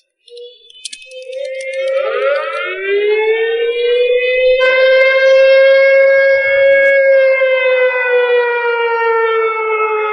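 Civil defence siren sounding the full-scale nuclear-strike warning alarm: it winds up in pitch over the first few seconds, holds a loud wail, then slowly sags in pitch.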